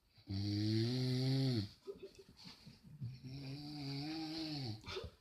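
A person snoring on purpose as a prank: two long, drawn-out voiced snores of about a second and a half each, with a short ragged sputter between them.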